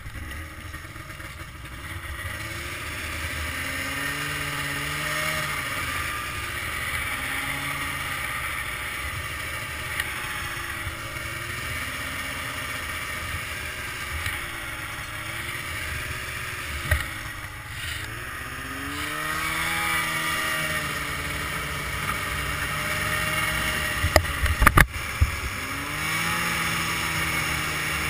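Snowmobile engine running under way, its pitch rising and falling repeatedly as the throttle is worked. A few sharp knocks come close together about 24 seconds in.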